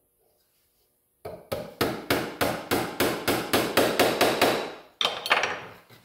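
Small cross-peen hammer tapping a brass wire nail home through a tin sleeve into a wooden tent pole: about fourteen quick, even strikes, roughly four a second, starting a little over a second in. A short ringing knock follows about five seconds in.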